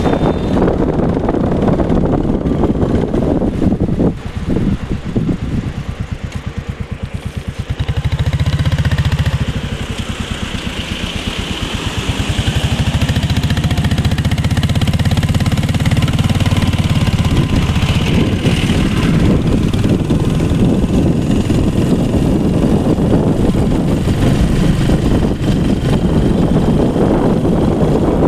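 An engine running steadily with wind on the microphone; for a few seconds early on its beat turns into a rapid, even pulsing.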